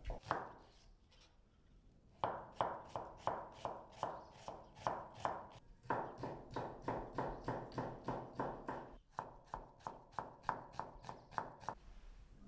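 Knife chopping food: one chop, a pause of about two seconds, then steady chopping at about three to four strokes a second that stops shortly before the end.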